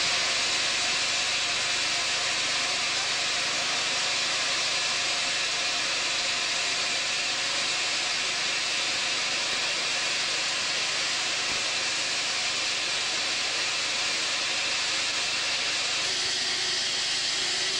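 Steam locomotive standing still, hissing steadily with escaping steam.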